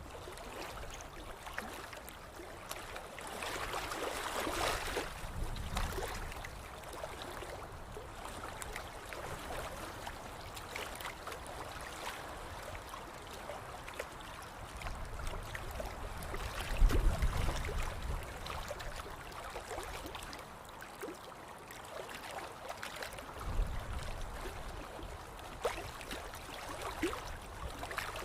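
Water lapping and trickling with small splashes, with a few low rumbles, the loudest about two-thirds of the way through.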